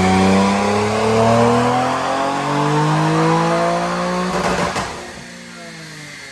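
Infiniti VR30DDTT 3.0 twin-turbo V6 with resonated 3-inch downpipes and resonated catback exhaust, pulling under load on a dyno, its pitch climbing steadily. About four and a half seconds in the throttle closes with a short rushing burst, typical of the blow-off valves venting, and the engine drops back to a much quieter tone.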